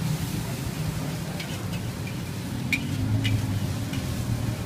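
Steady low rumble of street traffic, swelling as a car passes about three seconds in, with a few short metallic clinks of a spatula against a wok.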